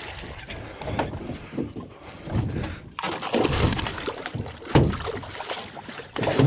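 Splashy water and wind noise around a john boat, with a few sharp knocks against the boat, as a hooked bass is fought to the side and landed.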